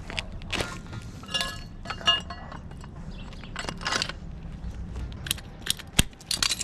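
Metal tools and pipe fittings being handled: a string of clinks and knocks, some ringing briefly, with one sharp click about six seconds in the loudest.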